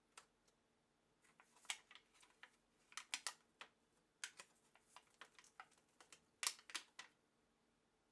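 Irregular small clicks and taps of hands and tools working on an electronic instrument during a teardown, loudest in a cluster about three seconds in and a pair of sharp clicks near the end.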